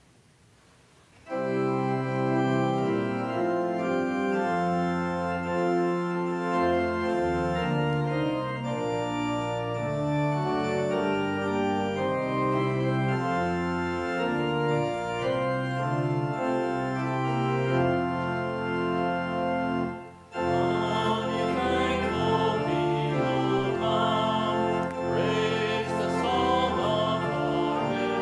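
Church organ playing held chords. It breaks off for a moment about twenty seconds in, then goes on with a busier line.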